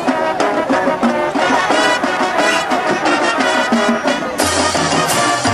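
Marching band brass playing a rhythmic passage of short notes, with a deep low-brass part coming in about four seconds in.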